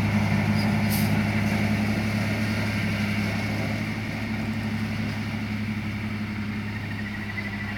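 Box truck's engine running steadily at low revs as the truck drives slowly away up a grassy slope, its low hum fading gradually.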